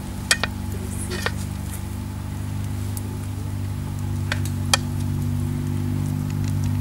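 A steady low drone of several held tones, growing slightly louder, with four light clinks of metal skewers against a metal tray.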